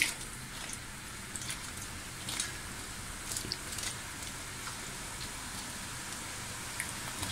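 Drops of besan batter frying in hot oil in a karahi as boondi: a steady sizzling hiss with scattered small crackles and pops.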